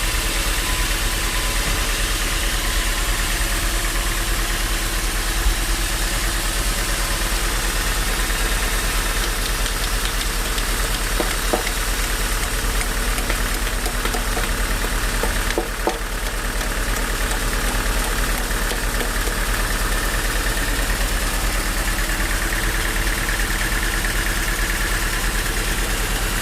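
Band sawmill machinery running steadily with a continuous engine-like drone and a deep hum, with a few sharp knocks about 5, 11 and 16 seconds in.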